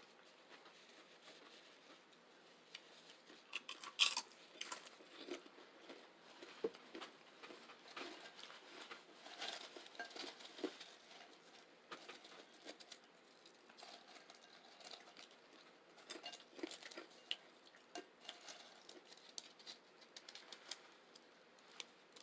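Close-miked crunching and chewing of chips with chili and beans: irregular crisp crackles and mouth sounds, with the loudest crunch about four seconds in.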